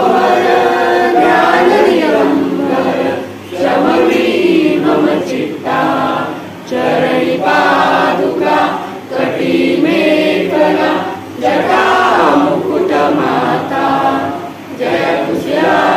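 A group of voices singing a Marathi devotional aarti together, in sung phrases of a few seconds with brief pauses between them.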